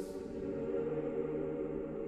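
Choir singing Orthodox liturgical chant, holding a sustained chord, with the low voices moving to a new note about two-thirds of a second in.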